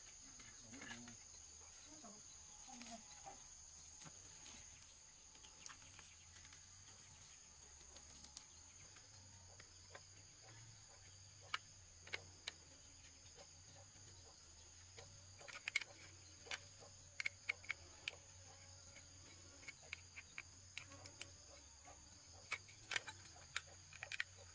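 Faint, steady high-pitched drone of forest insects, with scattered sharp clicks and taps that start about halfway through and come in clusters near the end.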